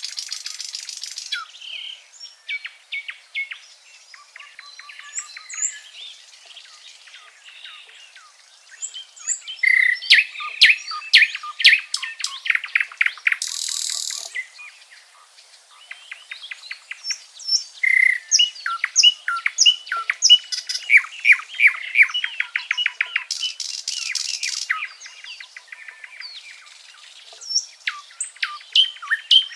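Several small songbirds singing and chirping, with fast trilled phrases that come in louder bursts. Twice a short, high buzzy hiss cuts in.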